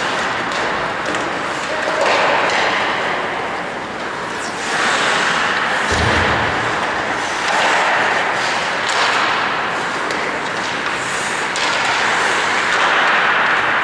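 Ice hockey play in an indoor rink: skate blades scraping the ice in repeated swells, with scattered clicks of sticks and puck and one dull thud about six seconds in.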